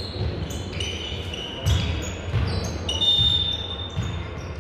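Indoor volleyball court sounds: a few dull thuds of the ball and players' shoes squeaking on the hall floor.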